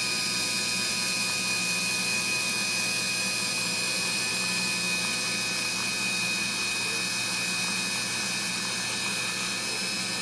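Showa power tilt-and-trim unit from a 2000 Evinrude 70 hp outboard, its electric motor and hydraulic pump running with a steady whine as the tilt ram extends upward toward full travel.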